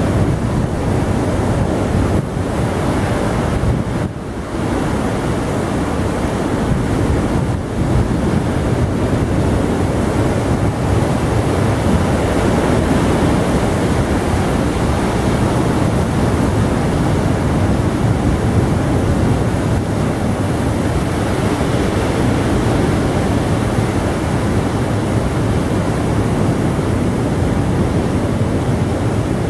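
Surf breaking steadily on a rocky shore, with wind rumbling on the microphone.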